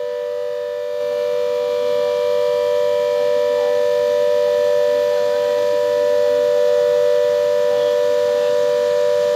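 Warning siren holding a steady, loud tone without rising or falling, growing a little louder about a second in. It sounds as the dam's spillway gates release floodwater.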